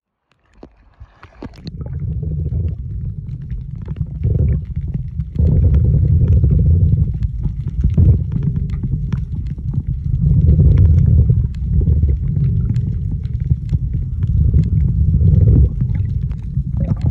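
Muffled underwater sound heard through a camera's housing on a scuba dive: a low rumble that swells and eases every few seconds, with scattered sharp clicks. It starts about half a second in.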